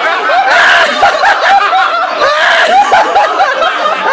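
A group of men laughing loudly together, in quick repeated bursts of hearty laughter.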